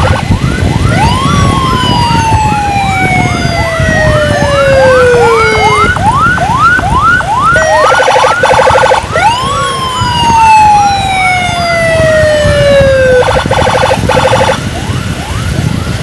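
Two electronic emergency sirens sounding together, loud: one in a fast yelp of rising sweeps about three times a second, the other in long falling wails of about four seconds each, one starting about a second in and another just past the middle, with short buzzing bursts between them. Engine and road rumble runs underneath.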